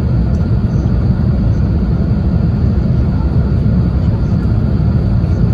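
Steady low rumble of cabin noise inside an Airbus A350-1000 in flight: airflow over the fuselage and its Rolls-Royce Trent XWB-97 engines, heard from a window seat over the wing.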